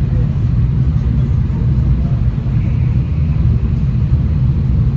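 V/Line passenger train running at steady speed: a continuous low rumble of wheels on the track and the train's running gear.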